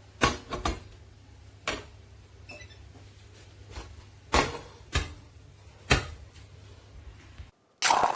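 A series of about seven sharp knocks or clatters at irregular intervals, some with a short ring after them. The steady hum under them cuts out briefly near the end, just before a final loud knock.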